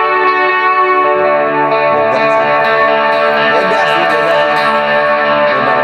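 Semi-hollow Telecaster-style electric guitar played through a Valeton multi-effects modeller: a clean tone with slight breakup, chords and single notes ringing and overlapping in a wide reverb, with a few bent notes.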